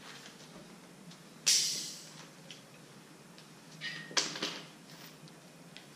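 A short, loud burst of hiss about a second and a half in, then a few sharp clinks and clatters of hand tools being picked up from a concrete floor a little after the midpoint.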